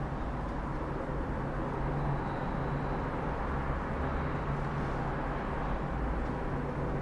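Office background ambience: a steady low rumble and hum under an even wash of indistinct noise, with no distinct events.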